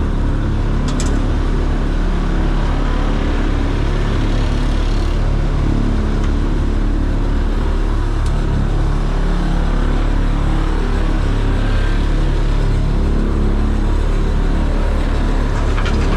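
Hydraulic excavator's diesel engine running steadily, with a few faint clicks.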